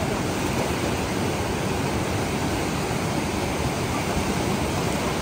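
Fast white-water river rushing over rocks close by: a steady, even rushing noise with no change.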